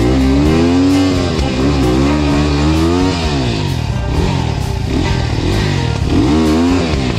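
KTM dirt bike engine revving up and down with the throttle, its pitch rising and falling several times, with background music playing under it.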